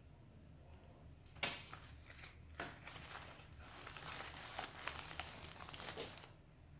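Handling noise: a run of crinkling, rustling and small clicks, starting about a second in and stopping shortly before the end.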